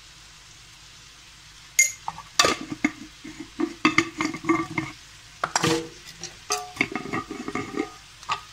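A spoon clinking, knocking and scraping against metal cookware in a rapid irregular run of short ringing clinks. It starts about two seconds in and stops just before the end.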